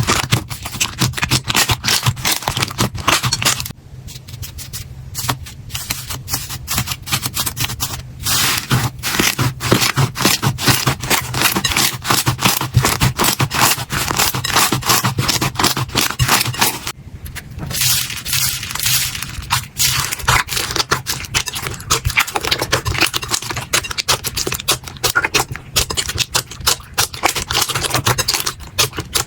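Slime being squeezed and pressed by hand, giving a dense, continuous run of crackling clicks and pops. There are two brief quieter spells, and a steady low hum sits underneath.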